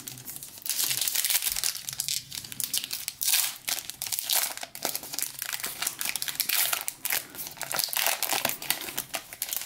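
Foil wrapper of a basketball trading-card pack crinkling as hands work it and tear it open, a dense, irregular crackle of thin metallised plastic that comes and goes in clusters.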